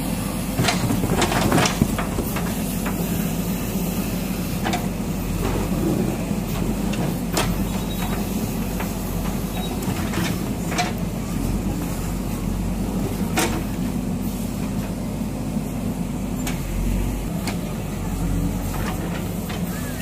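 JCB backhoe loader's diesel engine running steadily while its backhoe bucket breaks down a low brick-and-concrete wall, with scattered knocks and cracks of breaking masonry, the loudest about one to two seconds in.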